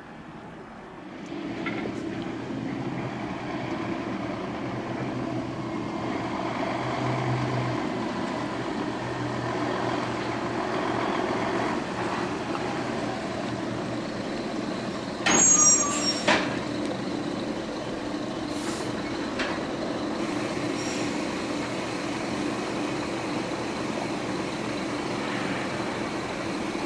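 Steady engine drone, with one short, loud, high-pitched squeal about halfway through.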